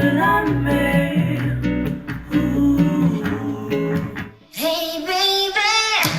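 Music: a song with plucked guitar and a singing voice. It drops out briefly about four and a half seconds in, comes back with a sung phrase, and switches abruptly to a different track at the very end.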